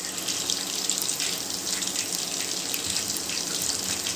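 Masala-marinated quail pieces deep-frying in hot oil in a steel kadai: a steady sizzle with fine, rapid crackles as the oil bubbles around the meat.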